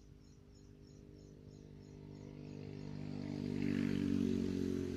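A motor engine passing by, running steadily, growing louder to a peak about four seconds in and then starting to fade.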